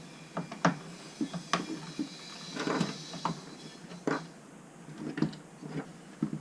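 3D-printed plastic hull parts being handled and pressed together on nylon dowel pins: irregular clicks and knocks, with a brief scraping rattle about two and a half seconds in.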